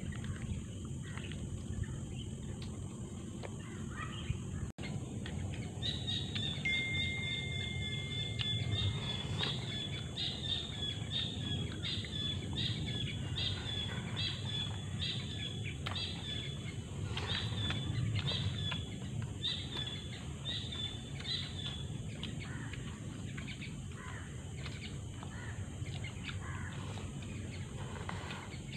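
Outdoor ambience of steady low background noise, with a bird calling a high chirp over and over, about once a second, through the middle stretch before it fades out.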